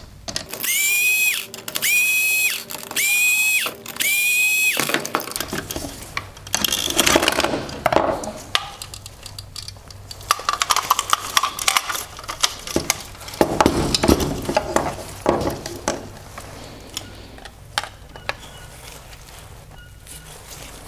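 Cordless electric screwdriver driving out four screws in turn: four short whines of about a second each, each rising in pitch as the motor spins up. These are followed by light clicks and rattles of plastic parts and loose screws being handled.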